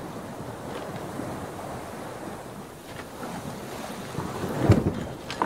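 Fingers rubbing and blending soft pastel into textured pastel paper, a steady scratchy rubbing noise, with a louder bump near the end.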